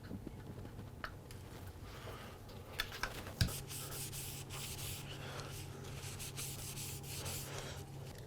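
Hand sanding on quartersawn white oak: a few light knocks, the loudest about three and a half seconds in, then a run of quick hissing back-and-forth strokes.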